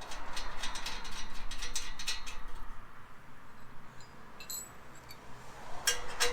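Quick run of sharp metallic clicks from hand-tool work on a freshly set rivet nut, then quieter handling and two sharp clicks near the end.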